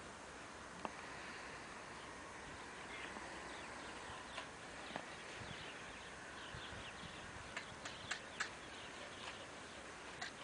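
Faint outdoor ambience: a steady hiss with scattered light clicks, a few of them close together about eight seconds in.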